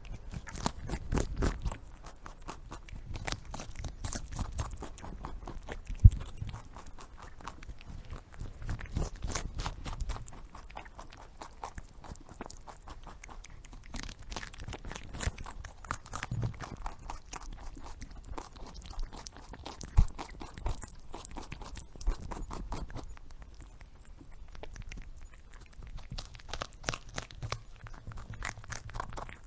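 A rabbit chewing food, a rapid run of small crunches with a few louder knocks now and then.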